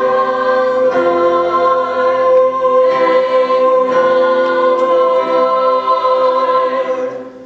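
A high school chorus singing one long held chord in several parts, which fades away near the end.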